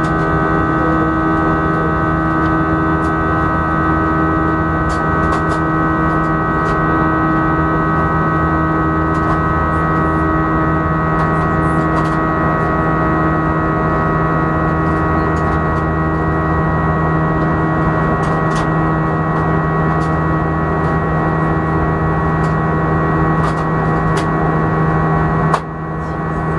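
Cabin noise of an Airbus A319 in flight, heard from a window seat beside the engine: a steady jet-engine drone with several constant tones over the rush of air. Near the end the level dips sharply and then comes back.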